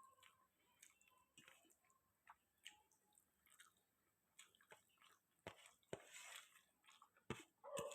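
A person chewing a meal: faint, scattered mouth clicks and smacks, sparse at first and coming more often and a little louder in the last few seconds.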